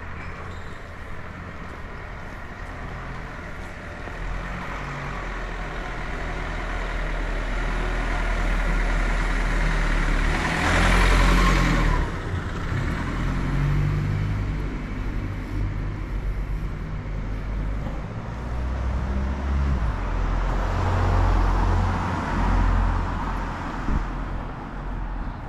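Street traffic: a car passing along the road, its sound swelling to the loudest point about ten seconds in and dropping off suddenly at about twelve seconds, with further uneven low rumble of traffic afterwards.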